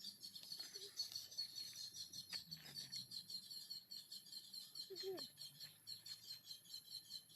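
A bird calling in a long, rapid series of short high chirps, about five or six a second, faint against a low outdoor hum.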